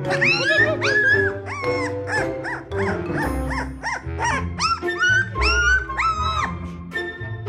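Very young Siberian husky puppy crying out in a quick string of short, high cries, about two a second, each rising then falling in pitch, a few drawn out longer near the end. Background music plays underneath.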